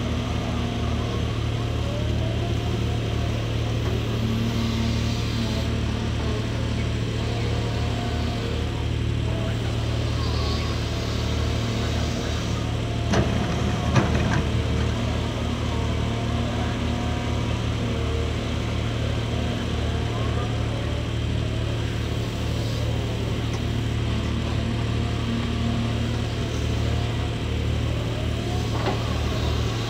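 Cat 340D2 L hydraulic excavator working: its diesel engine runs steadily under load, with a whine that rises and falls as the boom and bucket move. About 13 seconds in, two sharp knocks as the bucket strikes the ground.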